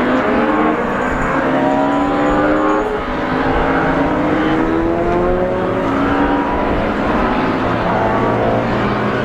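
Several racing car engines accelerating together, their pitches climbing and dropping back again and again as they shift up.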